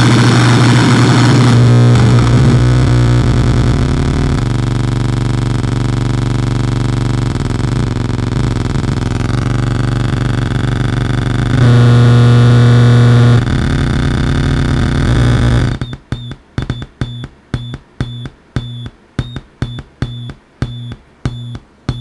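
Homemade dual-555-timer and 4093-chip tone generator putting out a harsh, distorted electronic drone: many stacked tones over a strong low hum, shifting as its settings change. About 16 seconds in it switches abruptly to a pulsing beep, about two pulses a second.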